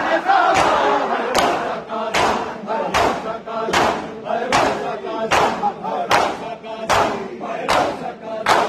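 A crowd of Shia mourners doing matam: many men strike their bare chests with open hands in unison, a sharp slap on a steady beat slightly faster than once a second. Men's voices chant and shout between the beats.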